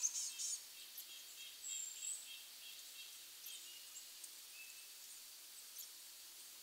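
Faint forest ambience with small birds calling: a quick burst of high chirps at the start, a short high whistle rising slightly about two seconds in, then scattered thin calls.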